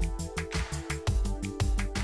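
Background music: an electronic track with a fast, steady beat over held synth tones.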